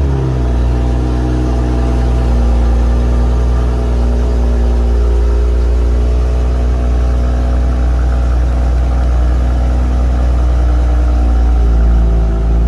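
2023 BMW X5 xDrive40i's B58 3.0-litre turbocharged inline-six idling on a cold start, heard at the exhaust tailpipe. The engine has just fired, settles slightly in pitch in the first second, then holds a steady high idle.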